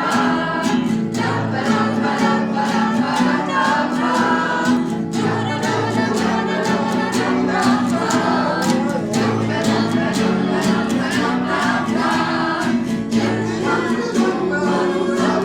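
A group of about twenty voices improvising together on a playful chant: a steady low sung line underneath, many voices over it, and frequent short sharp clicks throughout.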